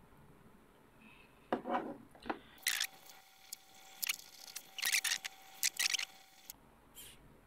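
Precision screwdriver turning small screws into a 2.5-inch drive's mounting tray: sharp metallic clicks and scrapes, a few at first, then a dense run of ticks for about four seconds in the middle.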